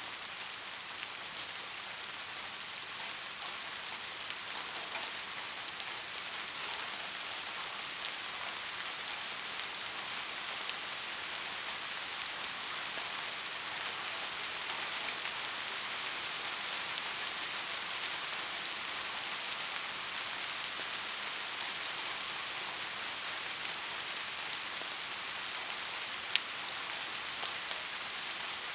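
Soft rain falling steadily: an even, fine hiss dotted with faint drop ticks, and one sharper, louder drip near the end.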